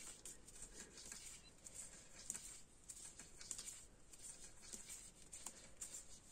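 Faint, irregular light clicking and rustling of knitting needles and yarn as stitches are worked.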